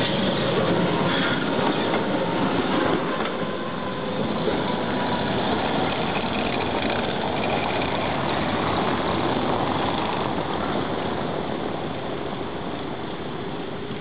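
Konstal 105N two-car tram rolling slowly along street track, its wheels and motors heard over steady city traffic noise, with a truck driving past; the sound eases off a little in the last few seconds.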